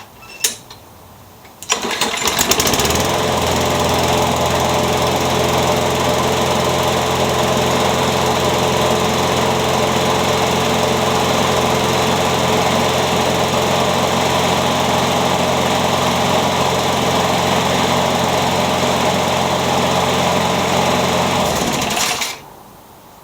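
Craftsman 21-inch push mower's Briggs & Stratton Quantum engine pull-started, catching about two seconds in. It runs steadily and evenly for about twenty seconds, then is shut off and dies near the end. The owner says it runs very well since its oil change.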